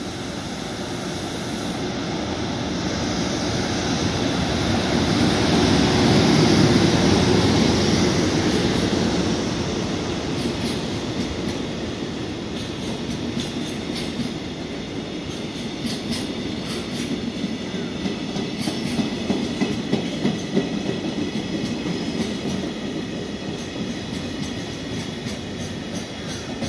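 Container freight train passing at speed. The locomotive comes on and goes by, loudest about six to eight seconds in, then the container wagons roll past with a rapid clickety-clack of wheels over the rail joints.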